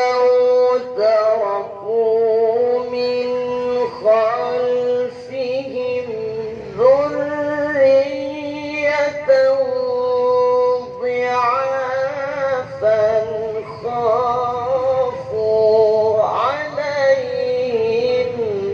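A male Qur'an reciter chanting in melodic tilawah style into a microphone, holding long, high, ornamented notes with wavering turns and glides, with short breaks between phrases.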